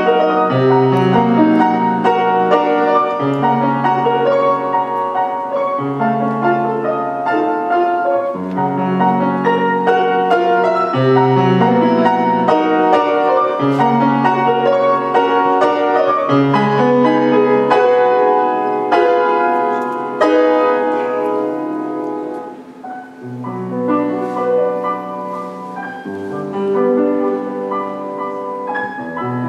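Solo grand piano playing a classical piece: a continuous flow of notes over held bass notes that change every second or two, with a brief quieter passage about two-thirds of the way in.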